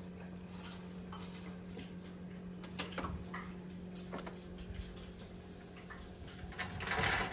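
Oven door opening and the wire oven rack pulled out, a metal sheet pan clinking and scraping on the rack, with a sharp click about three seconds in and louder clattering near the end.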